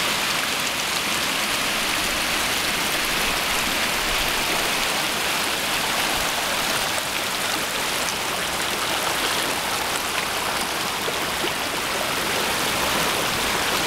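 Mountain creek water rushing and splashing down over smooth slickrock in shallow cascades, a steady unbroken sound of flowing water.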